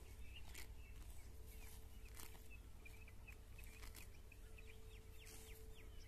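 Faint crisp ripping of cows tearing off grass as they graze, a few short rips every second or so. Small birds chirp throughout, with a quick run of falling chirps near the end.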